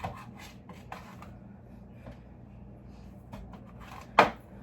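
Light handling knocks and clicks, with one sharp knock about four seconds in.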